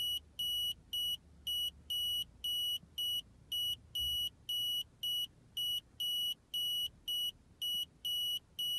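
Buzzer of a KME LPG fuel switch beeping in an even, rapid series, about two and a half high beeps a second, while its button is held down for an emergency start on gas.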